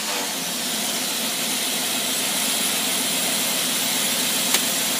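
Test-stand engine idling steadily on a freshly rebuilt Carter AFB marine four-barrel carburetor, running smoothly with an even, unbroken note. A single sharp click comes near the end.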